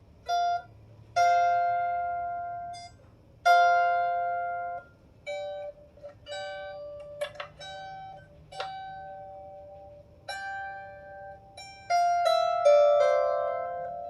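Strings of a 16-string lyre harp plucked one or two at a time, each note ringing and fading over a second or two. A quicker run of overlapping plucks comes near the end, and there is a light click about seven seconds in.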